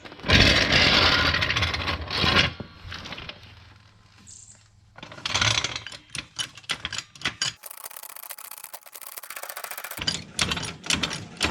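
Scraping and clattering of metal tools and equipment being handled, loudest in the first two seconds, with a steady hiss for a couple of seconds and a quick run of sharp clicks near the end.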